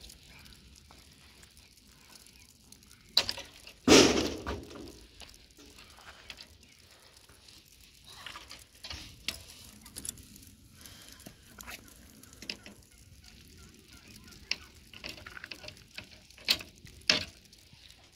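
Scattered knocks and scrapes of hand work on concrete and blocks along a curb, the loudest a hard knock about four seconds in and two more close together near the end, over a faint steady hiss.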